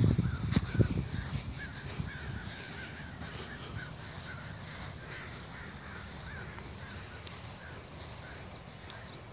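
Birds calling steadily in the background, a string of short repeated notes, with a few low thumps in the first second.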